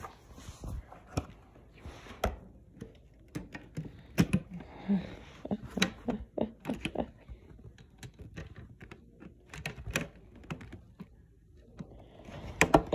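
Irregular clicks and light knocks of hands handling objects, with a short pause near the end.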